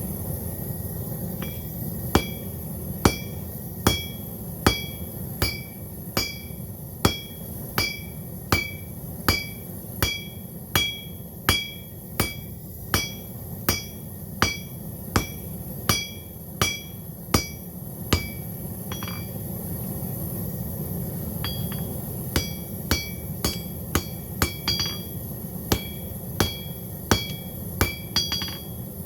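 Blacksmith's hammer striking hot steel on an anvil, about one blow a second, each blow ringing. The hammering stops for about four seconds past the middle, then resumes a little faster.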